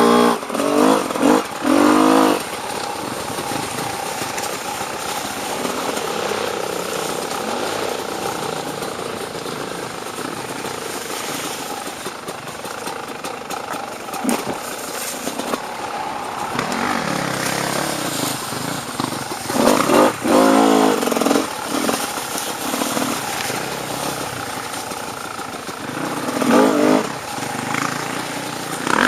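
Dirt bike engine revving in short bursts near the start, about twenty seconds in and again near the end, with a steadier, quieter engine and rushing noise in between.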